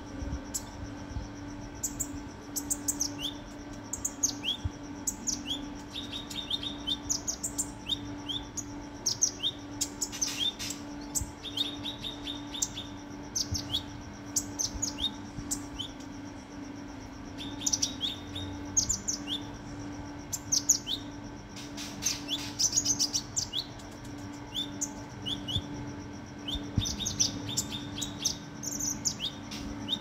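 Caged kinoi sunbird chirping: many short, high, quickly falling notes and fast runs of notes, coming in irregular bursts, over a steady low hum.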